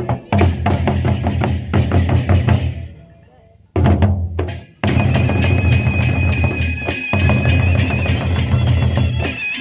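Gendang beleq, large Sasak double-headed barrel drums, beaten together in a fast, heavy rhythm. The playing fades out about three seconds in and starts again abruptly a second later, with a steady high tone joining the drums soon after.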